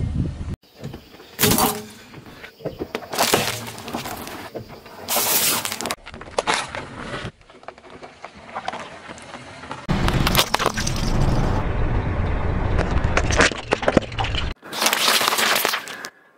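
A car tyre crushing objects on asphalt: plastic cracking and crunching in a string of short, abruptly cut takes, with several sharp cracks. The longest, loudest crunching comes about two-thirds of the way through, where a rigid plastic ice-cube tray is being run over.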